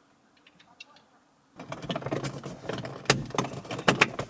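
Plastic trim of a dash cam housing being handled and fitted around the rear-view mirror mount: rattling and a few sharp clicks, starting about a second and a half in after a near-silent start.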